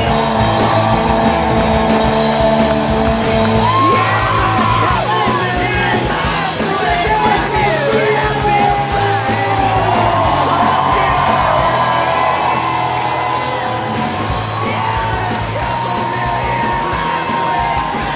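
Rock song with loud yelled singing over a driving beat.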